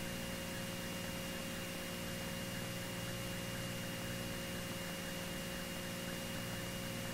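Steady electronic hiss with a constant low hum and a faint thin high tone: the noise floor of the cockpit intercom audio feed with no one talking.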